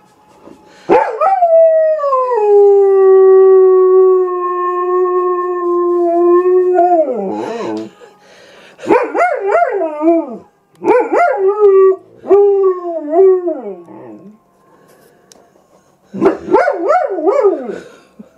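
German Shepherd howling: one long howl that slides down and then holds steady for several seconds, followed by a run of shorter howls whose pitch wavers up and down.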